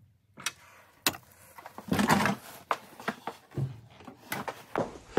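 Scattered clicks, knocks and handling noise from a Porsche 968 cabriolet door as it is moved to check its newly adjusted glass against the seal; the heaviest knock comes about two seconds in.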